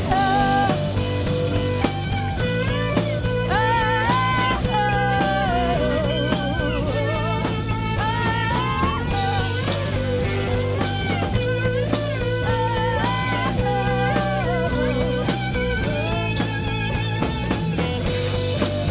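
Live rock band playing at full volume: electric guitars, bass guitar and drum kit keeping a steady beat, with a woman singing lead.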